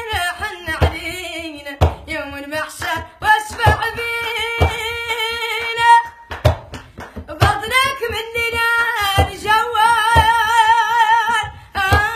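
A woman singing a Mauritanian madih, a praise song to the Prophet, in long, melismatic phrases with a strong vibrato. A low beat recurs about once a second beneath the voice.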